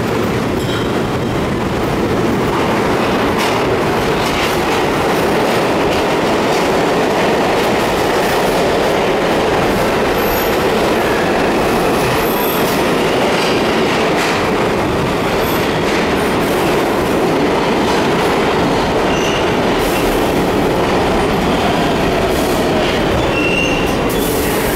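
R46 subway train pulling into an underground station: a loud, steady rumble of steel wheels on the rails, with a few short, high wheel squeals.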